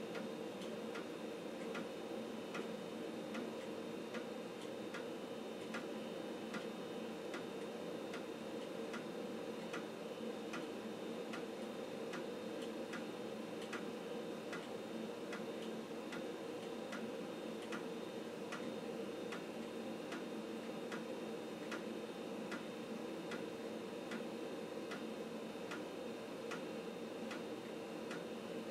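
Floppy disk drive working through a disk copy: the read/write head steps track to track with a sharp click at an even pace, roughly one and a half a second, over the steady hum of the running PC.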